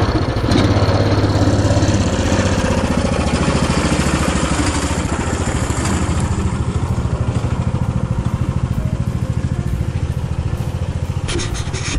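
Engine of a karakat, a homemade all-terrain vehicle on huge low-pressure tyres, running steadily with an even pulsing beat as the machine drives off.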